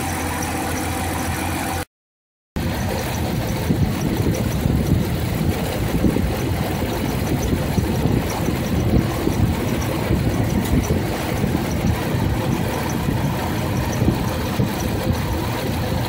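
Jeep Grand Cherokee engine idling steadily as it warms up toward thermostat opening. The sound cuts out for about half a second near two seconds in, then resumes with a noisier texture.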